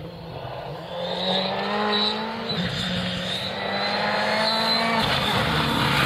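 Ford Fiesta rally car at full speed on a gravel stage: the engine held at high revs over the hiss of gravel under the tyres, getting louder about a second in as the car approaches.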